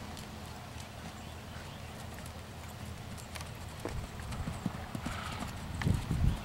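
Horse's hoofbeats on a sand arena as it canters, starting about four seconds in and growing louder as it comes close.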